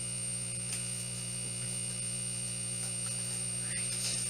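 Steady electrical mains hum with a faint high-pitched whine above it, broken only by a few faint small clicks.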